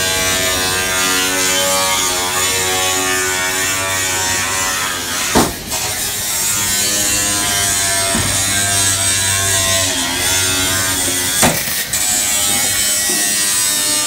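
Handheld electric angle grinder running continuously, grinding into a stainless-steel counter, its whine wavering in pitch as the disc bites. Two sharp bangs cut through it, about six seconds apart.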